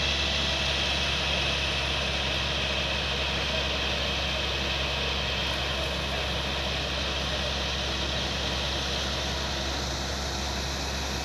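Steady rushing noise of fire hoses spraying water onto burning rail oil tankers, over the constant low hum of an engine running, likely the fire tenders' pumps.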